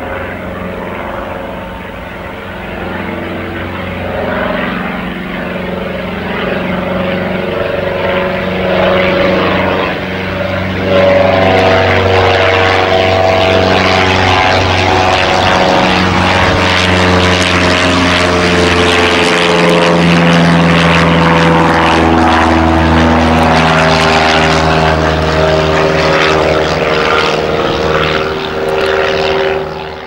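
Piper PA-28-181 Archer II's four-cylinder Lycoming O-360 engine and propeller, climbing out after takeoff. The steady propeller drone grows louder as the plane approaches and is loudest from about 11 seconds in as it passes overhead.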